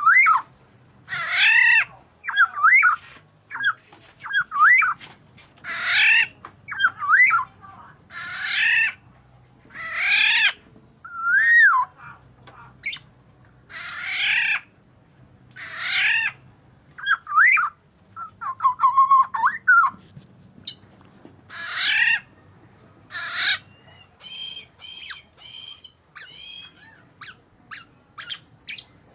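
Black-naped oriole (kepodang) calling: harsh calls about a second long, repeated roughly every two seconds, with short whistled notes gliding up and down between them. Near the end comes a quicker run of short, sharp notes.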